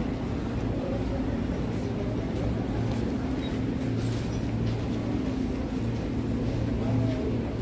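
Steady rumble with a low hum from an electric commuter train running, heard from inside the carriage.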